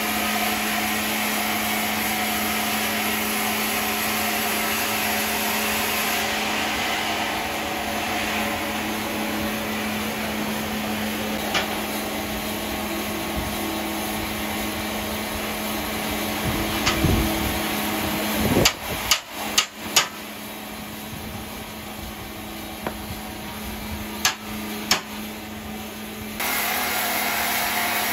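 Sawmill machinery running with a steady hum, broken by sharp knocks: one about a third of the way in, a quick run of four about two-thirds through, then two more shortly after.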